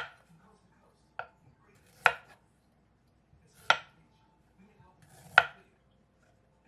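Kitchen knife slicing through ginger root and striking a cutting board: five separate, unhurried strokes, each a sharp knock a second or more apart.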